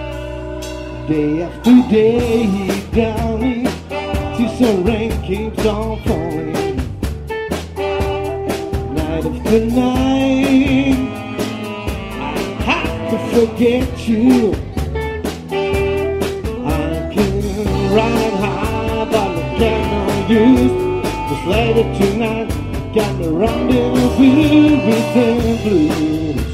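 Live blues band playing: a male singer singing over electric guitar, keyboard, bass and a drum kit keeping a steady beat. The full band comes in about a second in, after a held chord.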